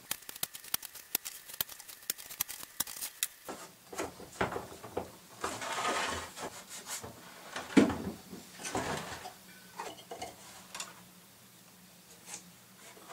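Woven repair cloth rustling and rubbing against a bare steel fuel tank as it is handled and pressed into place, with a quick run of sharp clicks in the first few seconds and one louder knock a little before 8 s.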